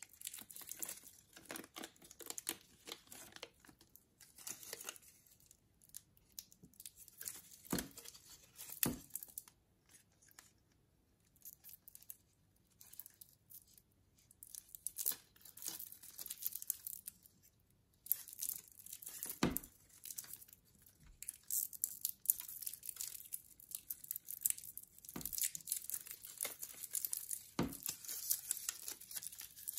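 Clear plastic wrapping crinkling and rustling as a rose-gold steel wristwatch is unwrapped and handled, in uneven spells with quiet gaps. A few sharp clicks stand out, about a quarter, a third, two thirds and nine tenths of the way through.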